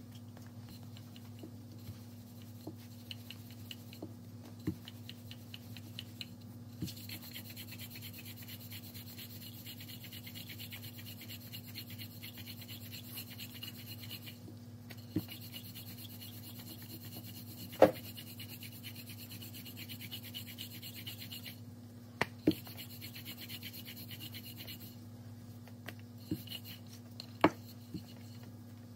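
Wooden rolling pin rolling out stuffed paratha dough on a silicone mat: a soft, repeated scraping and rubbing that picks up about seven seconds in, with a few sharp taps, over a steady low hum.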